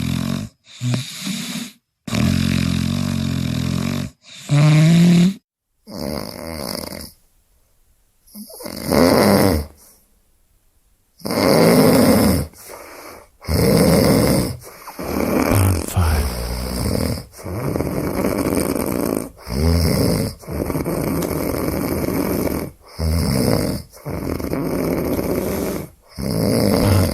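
Snoring in a string of short clips joined by abrupt cuts. The snore breaths repeat every one to two seconds, some with a low pitched rattle.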